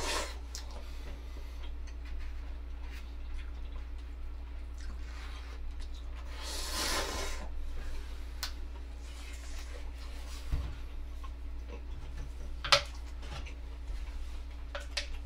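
Quiet eating at a cup of ramen over a steady low hum: two longer noisy slurps, one at the start and one about seven seconds in, and a few small clicks of utensil on cup.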